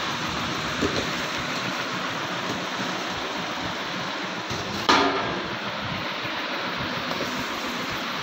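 Steady rustling and handling of a cardboard box and a plastic-wrapped chimney, with one sharp knock about five seconds in.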